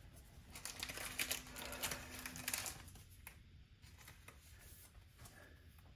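Faint rustling and light clicking of baseball trading cards being handled, busiest between about one and two and a half seconds in, then a few scattered clicks.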